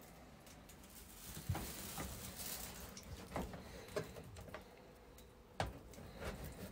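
A kitchen knife slicing through a cooked steak on a plastic cutting board: faint, scattered taps and knocks of the blade against the board, with a soft hiss about two seconds in.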